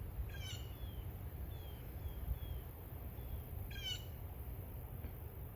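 Bird calls: two harsh, quickly falling calls, about half a second in and again near four seconds, with a few short, thin falling notes between them.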